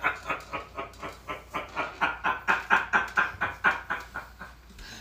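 A man laughing hard in a long run of quick, breathy pulses, about four or five a second, tapering off near the end.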